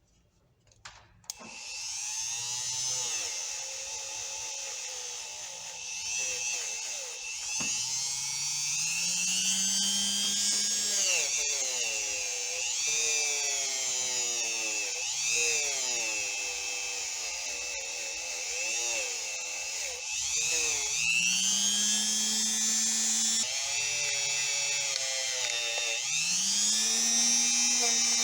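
Small handheld electric drill or rotary tool switched on about a second in and run against rusty steel pliers to clean them. Its motor pitch sags and recovers again and again as it is pressed into the work and eased off.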